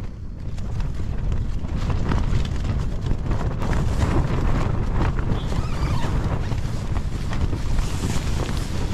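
Strong wind buffeting a tent, the flysheet flapping and snapping with many quick patters and cracks over a gusty rumble of wind on the microphone.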